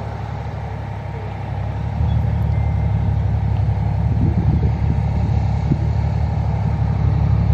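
Road traffic passing: a steady low rumble of cars and trucks that gets louder about two seconds in.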